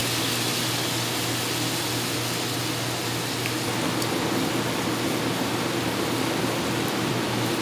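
Sliced meat and onion sizzling in a frying pan over a gas flame: a steady hiss with a low hum underneath.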